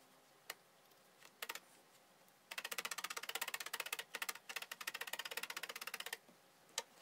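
Felting needle in a wooden hand pen stabbing repeatedly through wool into the felting pad: a few single stabs, then a fast, even run of about eight clicks a second for nearly four seconds.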